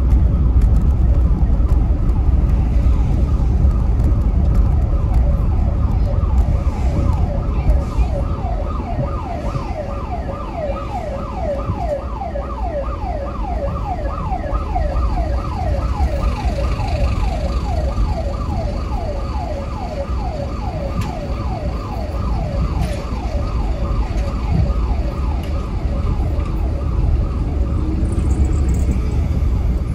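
Emergency-vehicle siren in rapid yelp mode, its pitch sweeping a few times a second; it grows louder toward the middle and fades away near the end, over the steady low rumble of a car driving.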